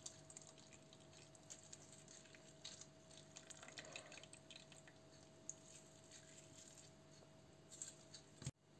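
Very faint squishing and dripping as hands squeeze juice out of grated raw potato and carrot over a bowl, against a faint steady hum.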